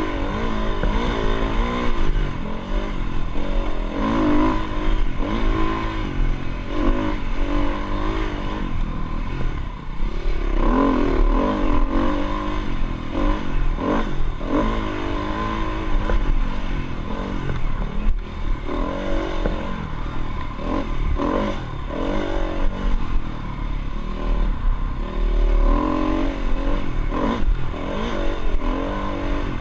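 Dirt bike engine running under way, its pitch rising and falling again and again as the throttle is opened and closed.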